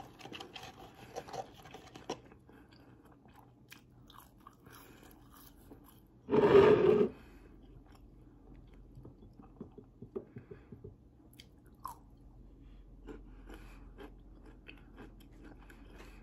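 Close-miked chewing of McDonald's French fries, with soft crunches and small mouth sounds. About six seconds in there is one loud sound, under a second long.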